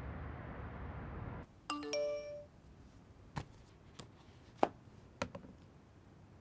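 A smartphone message alert chime, a quick run of three rising notes with the last one held briefly, about two seconds in. Before it, a steady low background hum cuts off; after it come four single sharp clicks.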